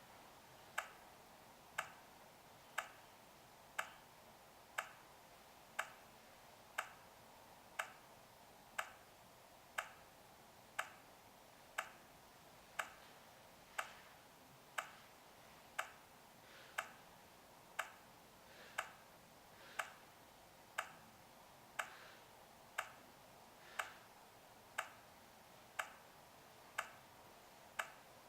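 HOMSECUR LA02 alarm panel ticking about once a second, a short sharp tick each time, typical of an exit-delay countdown after the system has been armed.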